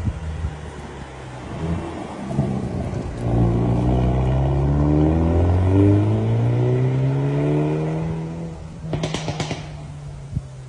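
Hyundai i30N's turbocharged four-cylinder engine through its stock exhaust, accelerating with the engine note climbing steadily for several seconds. About nine seconds in, a quick burst of exhaust pops and crackles as the throttle is lifted, then the engine settles to a steadier, lower note.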